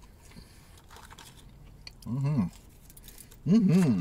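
A man's voice making two short wordless hums, about two seconds in and again near the end, the second rising and falling twice, between faint chewing and mouth sounds as he eats French fries.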